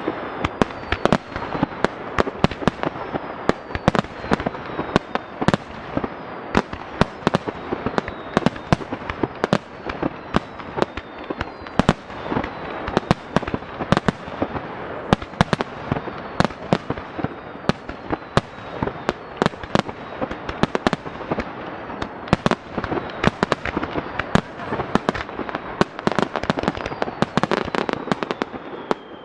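Fireworks display: aerial shells launching and bursting in rapid succession, a dense run of sharp bangs several a second, with faint falling whistles now and then.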